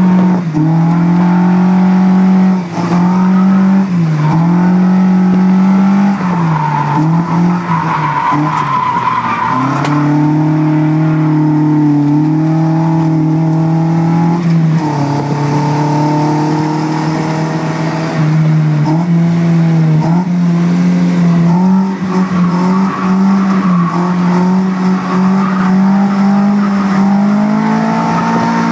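Car engine under hard driving, heard from inside the cabin, its note rising and falling as the throttle is worked on and off through the corners, with tyre squeal from drifting at times.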